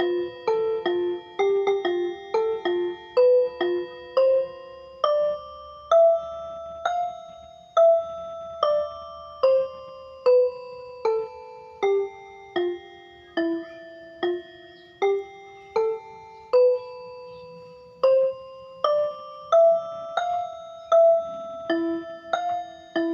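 Gentle instrumental background music: a slow melody of single bell-like notes, each struck and then ringing away, about one or two notes a second.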